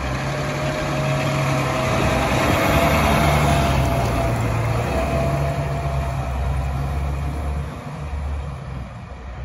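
Fire engine's diesel engine running as the truck drives past, growing louder to about three seconds in and then fading as it moves off.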